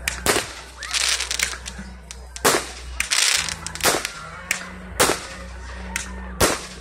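Aerial fireworks going off in quick succession: about a dozen sharp bangs, with a burst of rapid crackling about a second in.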